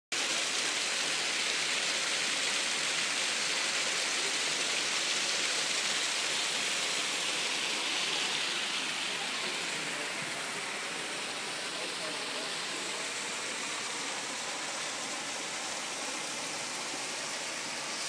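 Steady rushing of a large waterfall's falling water, easing slightly after about eight seconds.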